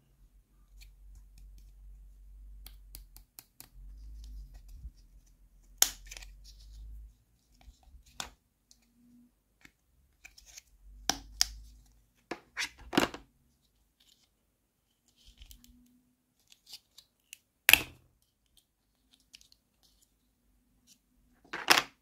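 Small pink plastic doll-furniture pieces snapped off their plastic sprue by hand: about six sharp plastic snaps spread out between quieter handling clicks and rustling.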